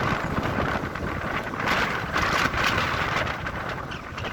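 Strong thunderstorm wind gusts blasting the microphone, a loud, gusty buffeting rumble with flutter.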